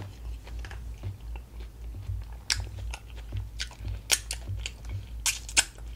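Close-up chewing with wet lip smacks and sharp sucking clicks as sauce-coated fingers are licked, a handful of loud smacks standing out over the steady chewing.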